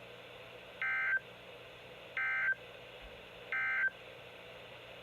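Three short, identical bursts of warbling EAS SAME data tones, about a second and a half apart: the end-of-message (EOM) code that closes a NOAA Weather Radio Required Weekly Test.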